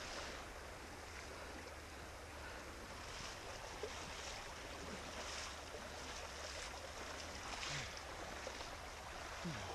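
River water rushing, with splashes from legs wading through it.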